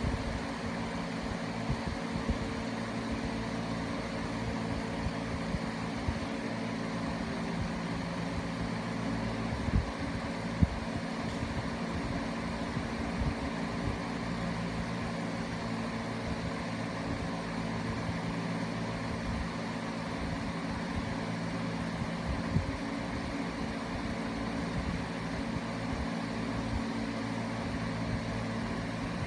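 Steady low mechanical hum with several fixed tones, like a motor or engine running, with a few short sharp sounds on top, the loudest about ten seconds in.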